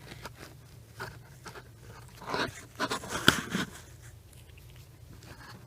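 Hand tools being handled and fitted under a car's dashboard: rustling, scraping and light metallic clicks, busiest around the middle, with one sharp click about three seconds in.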